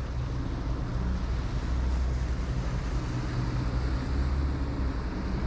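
A boat engine running with a steady low rumble and hum.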